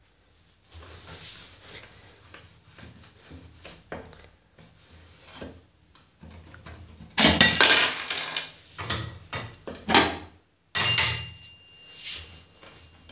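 Metal burner parts of a glass-top gas stove clinking and rattling as they are handled, lifted off and set down, with quieter rubbing and handling in between. There are two loud clattering bursts that ring on briefly, one about seven seconds in and one about eleven seconds in.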